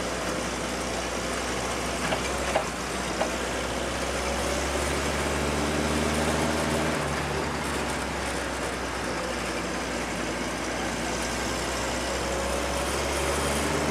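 Off-road vehicle's engine running under way, heard from inside the cab, with a steady hum and road noise. A few light knocks come about two to three seconds in.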